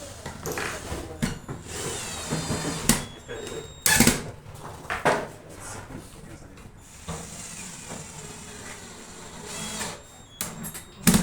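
Power drill running in short bursts, driving screws into furniture board, with sharp knocks and clatter of wood and tools being handled; the loudest knock comes about four seconds in.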